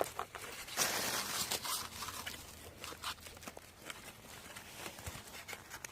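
Crunching, crinkling and scraping handling noises as a fire-baked jacket potato is opened up: a dense crackly rustle about a second in, then scattered small clicks and scrapes.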